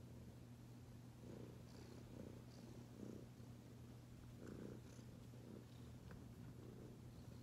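Domestic cat purring faintly, a low steady rumble that pulses a little under a second apart.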